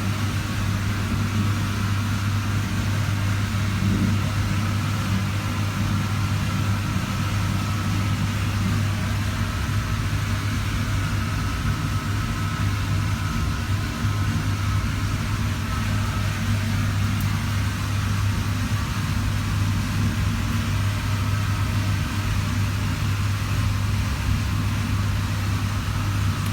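Refrigerator compressor running with a steady low hum.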